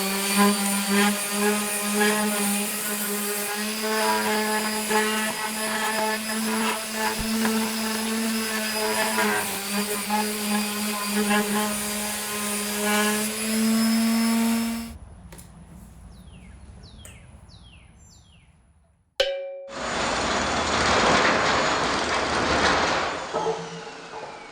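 A handheld power tool's electric motor running steadily at a near-constant pitch for about fifteen seconds, then stopping. Later come a sharp click and a few seconds of hissing noise that fades away.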